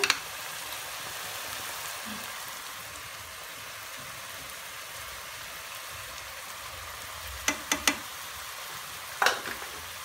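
Diced peppers, onion and peas sizzling steadily in oil in a frying pan. A few sharp clicks come about three quarters of the way through, and another comes near the end.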